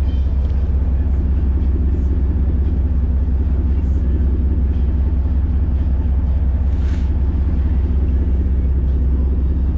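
Fishing boat's engine running steadily with a low, even drone.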